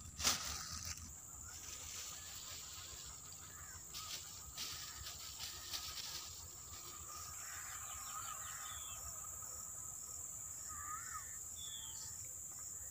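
Insects droning in a steady high tone in the background, with a faint regular chirping joining about halfway through. A bird gives a short rising-and-falling call three times in the second half, and there is a sharp knock right at the start.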